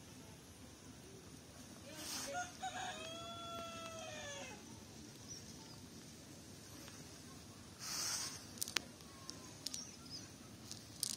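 A rooster crowing once: a single long call about two seconds long, a couple of seconds in, rising and then falling in pitch. Two short bursts of rustling, one just before the crow and one about eight seconds in, come from the cast net being handled on the grass.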